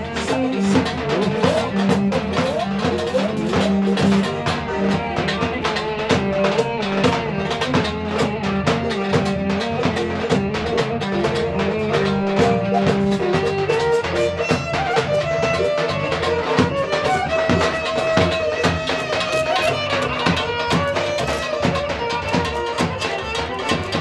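Roman havası dance music with a steady, busy drum beat under a melody line; about halfway through the low part drops out and a higher melody comes forward.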